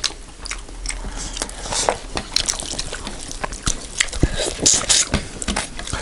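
Close-miked eating sounds from two people eating curry and rice with their hands: wet chewing, lip smacks and squishing, as a string of irregular short clicks.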